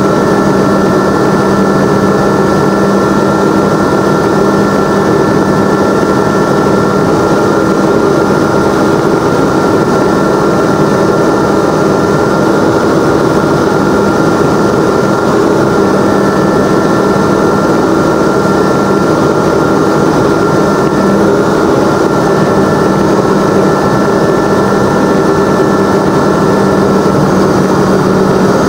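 Aeroprakt A22LS ultralight's Rotax 912 engine and propeller running steadily in flight, a constant drone with rushing air, heard from inside the cockpit.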